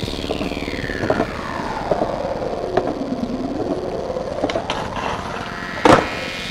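Skateboard wheels rolling steadily on smooth concrete, with a few sharp clacks of the board. About six seconds in comes one loud clack as the board slaps down on the ground during a flat-ground trick.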